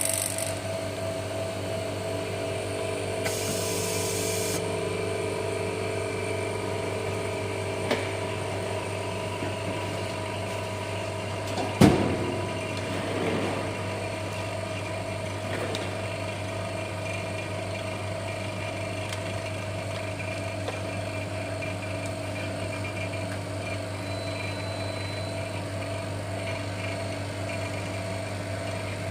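Steady machine hum, with one sharp knock about twelve seconds in.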